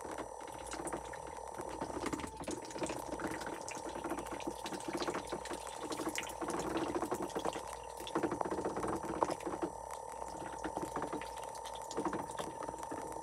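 Domestic ducks, a Blue Swedish among them, dabbling with their bills in water and wet mash, giving a fast, continuous wet clatter of bill clicks and slurps.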